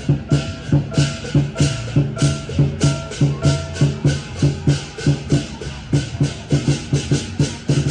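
Percussion-heavy music with a steady beat of about two to three hits a second, low drum thumps together with bright, shimmering cymbal-like hits.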